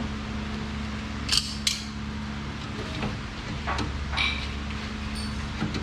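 A handful of sharp metal clinks and clanks, like tools and steel car parts being handled and set down, with two close together about a second and a half in, over a steady low hum.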